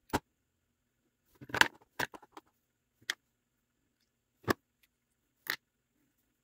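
Small metal parts of a Kubota D722 diesel injection pump clicking and clinking as they are worked loose and pulled out by hand: a few separate sharp clicks, with a short burst of rattling about one and a half seconds in.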